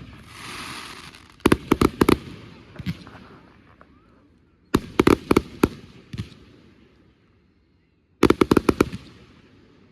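Fireworks going off: a hissing crackle near the start, then rapid volleys of four to six sharp bangs about every three seconds, each fading out in echo.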